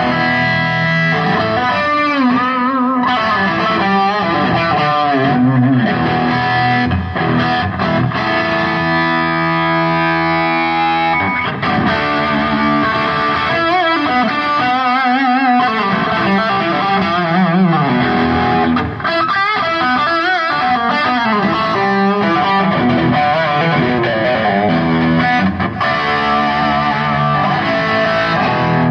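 Electric guitar played through distortion and effects, with long sustained lead notes that waver in pitch with vibrato.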